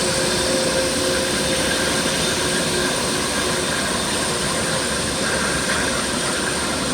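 Jet aircraft engine noise, a steady rushing sound with a few faint held tones in it.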